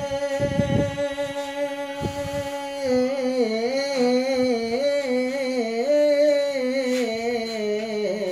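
A man singing a naat unaccompanied, without words. He holds one long note for about three seconds, then sings a wavering, melismatic melody.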